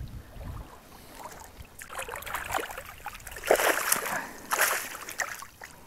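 Water splashing and sloshing in a few irregular bursts as a keepnet holding the caught bream is handled and lifted in the river.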